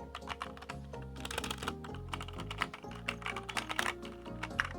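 Fast typing on a HyperX Alloy Origins mechanical keyboard with HyperX Aqua tactile switches and PBT OEM-profile keycaps: a quick, uneven run of key clicks. Background music plays underneath.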